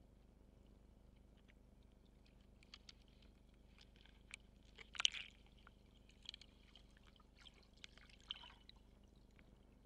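Faint underwater sound picked up through a camera housing: scattered small clicks and crackles, with a louder short watery burst about five seconds in and a few smaller ones after it.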